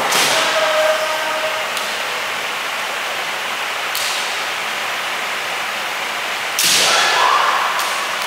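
Kendo shinai (bamboo swords) cracking against each other and on armour, with kiai shouts from the fighters. A loud strike with a shout comes at the start and again a little past halfway, with single sharp cracks in between, over a steady hiss.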